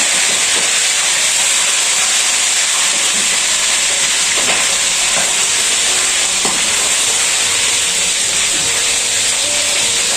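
Chicken pieces deep-frying in a pot of hot oil: a steady, loud sizzle, with a couple of light clicks from the tongs in the pot.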